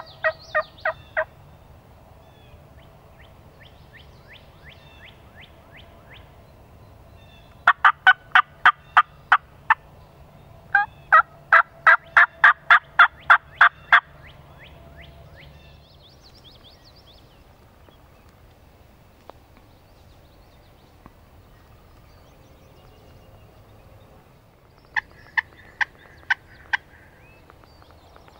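Turkey yelping: runs of sharp, evenly spaced notes about four a second, the longest run about a dozen notes, with fainter yelps between the louder runs. Near the end there is a shorter run of about six notes.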